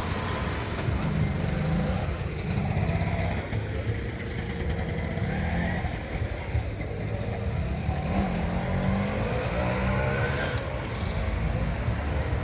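A small engine running steadily, its pitch shifting up and down.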